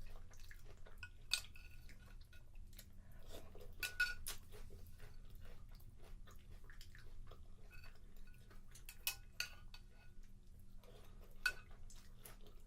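A spoon clinking against a cereal bowl several times, with soft chewing of cereal in between.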